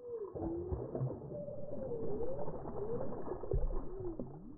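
Slowed-down, deep-pitched audio of a chain pickerel striking a topwater lure: a drawn-out low water splash with a heavy thump a little past three seconds in, under wavering tones that glide up and down.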